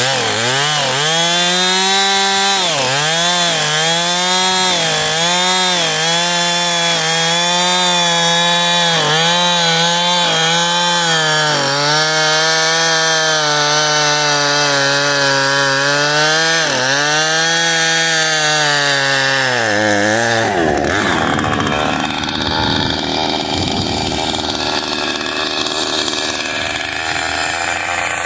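Husqvarna two-stroke chainsaw running at high revs and cutting into oak, its pitch dipping and recovering over and over as the chain bites under load. About twenty seconds in it comes off the throttle and the steady whine gives way to a rougher, lower running.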